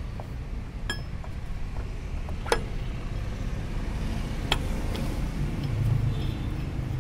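Steel hex bolts clinking against each other and the pump's impeller as they are threaded in by hand: a few sharp metallic clicks, the loudest about two and a half and four and a half seconds in, over a steady low rumble.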